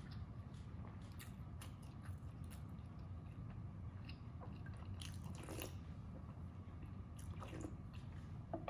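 Close-miked chewing of food with the mouth closed: soft wet mouth clicks and smacks, with a brief flurry of sharper clicks about halfway through. A low steady hum lies underneath.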